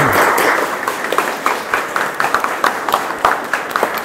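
Audience applauding. The clapping is dense at first and thins out about a second in to scattered individual claps.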